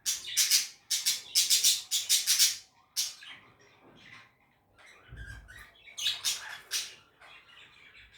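Budgerigars squawking and chattering in rapid harsh bursts, dense for the first three seconds and again around six to seven seconds in. A low thump comes about five seconds in.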